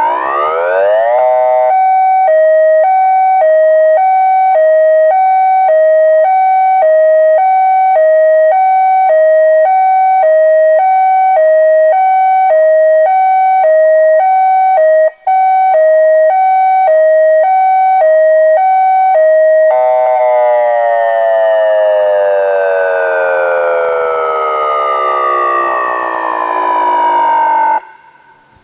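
STORMAlert OmniAlert 1004 electronic outdoor warning siren playing a Thunderbolt 1003 siren tone, very loud. It winds up in a rising glide, alternates steadily between a high and a low pitch about once a second with a brief cut-out about halfway through, then winds down in a long falling glide and cuts off abruptly near the end.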